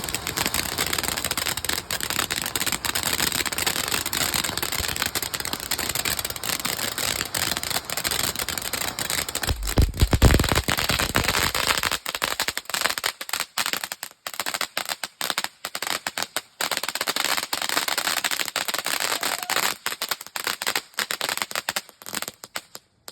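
Leftover gunpowder in a firework burning, fizzing and crackling steadily, with a louder deep burst about ten seconds in. It then sputters in short bursts and cuts off suddenly at the end.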